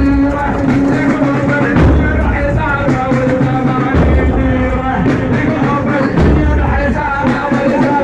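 A man's voice chanting a rousing Arabic Husseini poem in the radood style, in a melodic line over a heavy low beat that falls about every two seconds.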